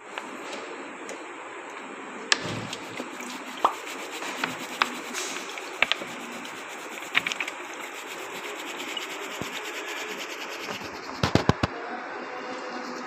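A paint brush's bristles being rubbed and squeezed by hand while liquid is poured over them from a plastic bottle, a steady rubbing hiss. Sharp clicks and knocks come now and then, with a quick cluster about eleven seconds in.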